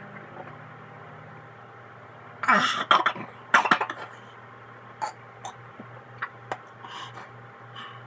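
A person coughing and gagging after swallowing a raw egg: two loud coughs or gags about two and a half and three and a half seconds in, then smaller throat and mouth noises.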